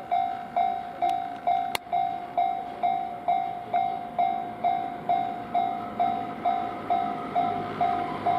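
Japanese railway level-crossing warning bell ringing steadily, one pitched ding about twice a second, with a sharp click about two seconds in. Train noise builds under the bell near the end as a train approaches the crossing.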